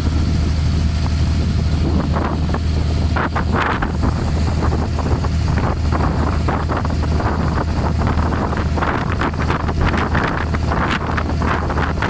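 Steady low drone of an abra water taxi's diesel engine while under way, with wind gusting on the microphone more strongly in the second half.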